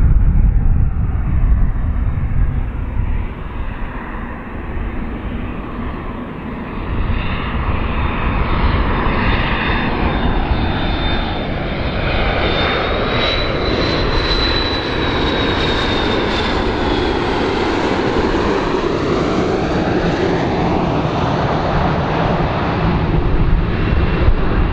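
McDonnell Douglas MD-82 airliner on landing approach: the steady roar of its two rear-mounted Pratt & Whitney JT8D turbofans, with a deep rumble beneath. A thin high whine rides on top, rising slightly about halfway through, then falling and fading out.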